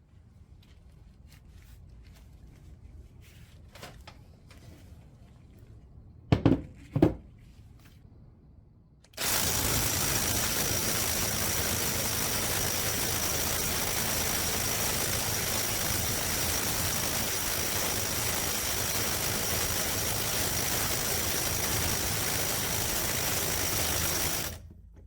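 Cordless right-angle impact wrench hammering on a nut without a break for about fifteen seconds, with a thin steady whine over the dense rattle, then stopping suddenly. Before it there are two sharp knocks as the tool and socket are handled.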